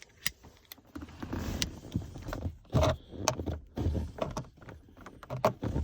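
Flathead screwdriver working at a clipped-in plastic air-vent trim panel in a car's interior: irregular sharp clicks and knocks of metal against hard plastic, with scraping and handling noise between them.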